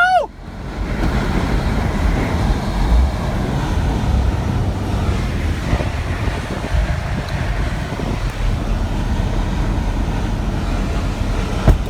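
Strong storm wind buffeting the microphone: a steady rushing noise with a heavy low rumble, turning louder and more turbulent right at the end.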